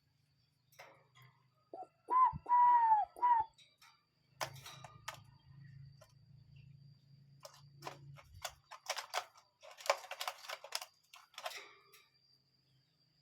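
A bird calls about two seconds in: a short clear note, then a long arched whistled note, then a short one. After it comes a long run of sharp clicks and crackles, thickest near the end, over a faint steady high-pitched tone.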